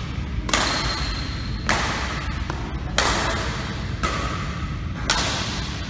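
Badminton rackets striking a shuttlecock in a rally: five sharp hits about a second apart, each ringing on briefly in the echo of a large hall.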